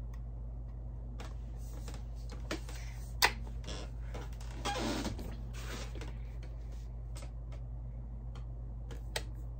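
Metallic clicks and clacks of a Diana 48 side-lever spring air rifle being handled and loaded. There is a sharp click about three seconds in, a short clattering stretch around five seconds, and a faint click near the end.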